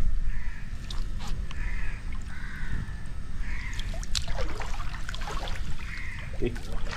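Crows cawing several times, short calls a second or more apart, over water sloshing and swishing as someone wades through floodwater.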